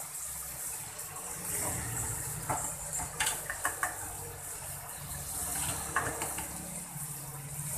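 Marinated pork pieces sizzling in a hot wok of oil and garlic, a steady hiss with a few light clicks of a utensil against the pan.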